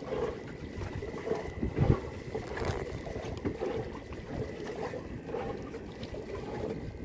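Wind on the microphone and water washing around a small fishing boat at sea, with scattered low knocks.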